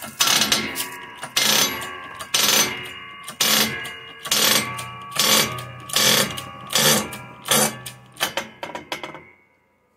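Hand-pumped bottle jack on a shop press being worked stroke by stroke, about one sharp metallic clank a second with a short ring after each, a little quicker near the end. The pumping stops about nine seconds in. The ram is forcing a bolt against a running board bracket's pivot pin to push it out.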